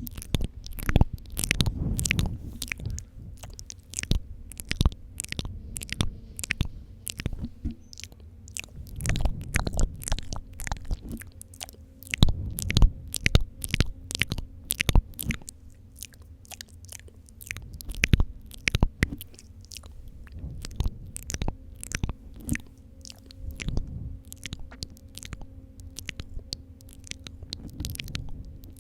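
Wet mouth sounds for the ASMR spit-painting trigger: rapid, irregular clicks and smacks of lips and tongue.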